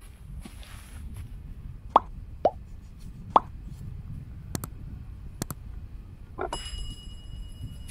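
Subscribe-button animation sound effects: three quick pops that drop in pitch, then two sharp mouse-style clicks, then a notification bell chime ringing on near the end.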